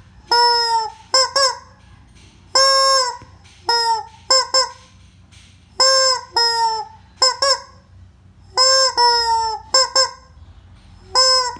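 Rubber squeaking chicken toy being squeezed over and over, giving a loud honking squawk followed by two or three short squeaks, about every three seconds, four times.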